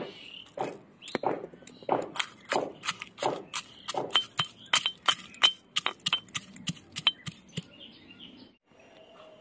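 Iron pestle pounding roasted dried red chillies and spice seeds in a cast-iron mortar: heavy strikes at a steady pace, then quicker, lighter metallic clinks with a ringing tone, stopping near the end.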